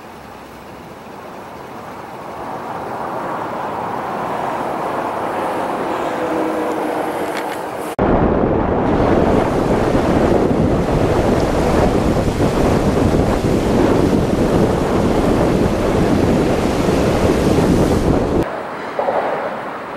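Wind noise building over the first few seconds. At a sudden cut about eight seconds in, a loud, steady rush of floodwater spraying up close by as a vehicle drives through a flooded road; it stops abruptly near the end.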